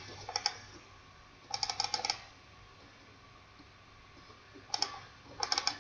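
Computer keyboard and mouse clicking in short bursts: a couple of clicks near the start, a quick run of clicks about a second and a half in, and more near the end.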